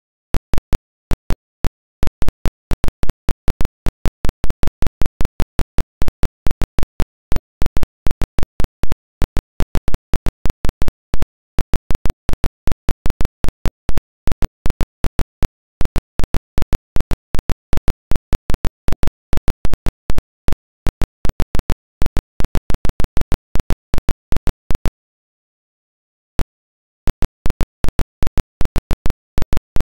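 Sharp, loud clicks at irregular intervals, several a second, with dead silence between them. The clicks pause for about a second and a half near the end, then start again.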